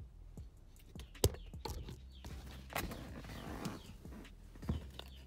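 Scattered knocks and clicks with some rustling as things are handled inside a car, the loudest knock a little over a second in. A faint steady low hum runs beneath.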